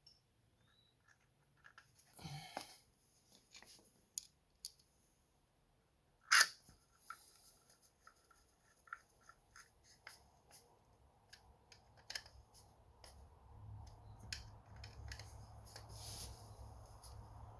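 Scattered clicks and knocks of hand tools on metal as the case saver's bolts are worked in, with one sharper knock about six seconds in. A low steady hum comes in near the end.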